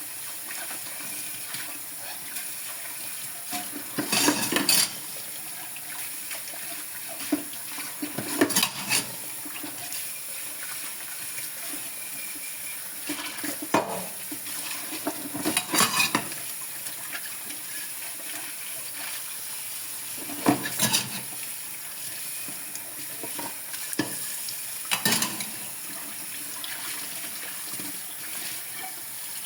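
Tap water running steadily into a sink while dishes are washed by hand. Short clatters of dishes and cutlery come every few seconds, about six times.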